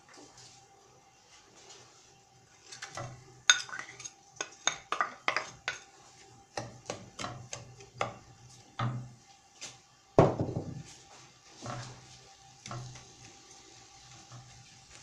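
Wooden spoon knocking and scraping against a nonstick frying pan as chopped onions are stirred in oil. It is an irregular string of clicks and knocks starting about three seconds in, with a sharp knock soon after and a louder one about ten seconds in.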